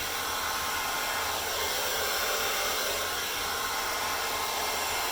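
Hair dryer running steadily, blowing air to push acrylic paint across a canvas in a Dutch pour.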